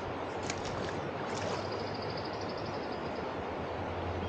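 Steady rush of flowing stream water, with a few short high chirps in the first second and a rapid trill of evenly repeated high notes lasting about a second and a half.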